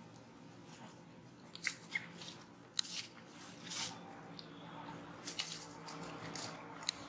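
Scattered short crackles and rustles of dry leaf litter as young long-tailed macaques wrestle and roll on it, over a faint steady low hum.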